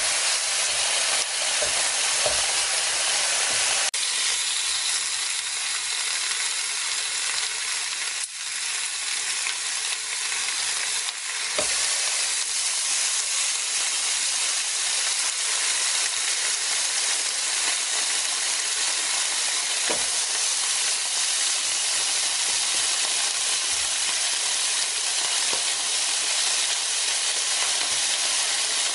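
Pork slices sizzling steadily on a round, slotted Korean barbecue grill plate, with a few sharp clicks from the metal tongs turning the meat.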